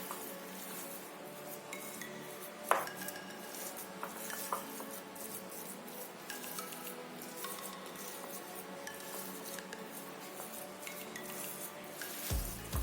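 A utensil scraping and clinking against a mixing bowl as a mashed-potato cutlet mixture is stirred with breadcrumbs. There are scattered light clicks and one sharper knock about three seconds in.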